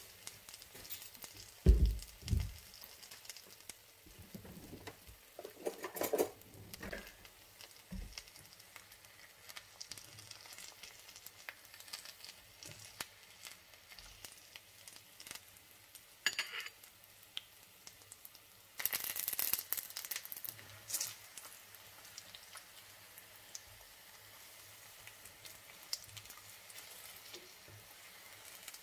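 Apple spring rolls frying in oil and caramelising sugar in a pan, a low sizzle with scattered fine crackles. A loud thump comes about two seconds in, with a few smaller knocks and a short rush of noise about two-thirds through as the pan and rolls are handled and turned.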